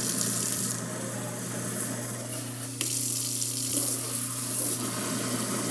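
Kitchen garbage disposal running with a steady hum while hot water from the faucet pours into it and a sink sprayer rinses soapy water down the drain of the other basin. A single sharp click a little under three seconds in.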